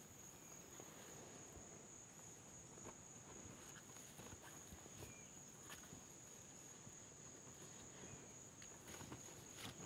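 Faint, steady high-pitched insect chorus, with soft scattered rustles and ticks of cordage being handled against wooden poles.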